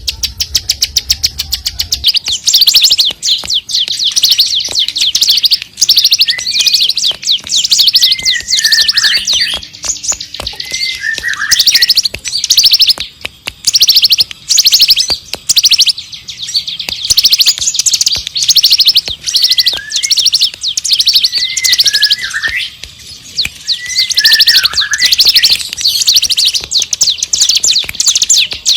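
Bar-winged prinia (ciblek) singing a fast, unbroken song of rapid high-pitched chips, with lower down-slurred whistles now and then.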